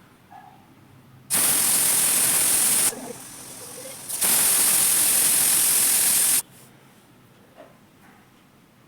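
Pressure cooker whistle going off twice: two loud hisses of escaping steam, the first about a second and a half long and the second about two seconds, with a softer hiss between them. This is the cooker reaching full pressure and venting through its weight valve.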